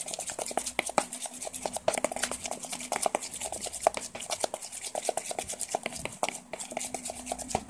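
Metal spoon stirring a wet, soapy glue slime base in a plastic bowl, mixing in olive oil: a rapid, irregular run of wet clicks and taps.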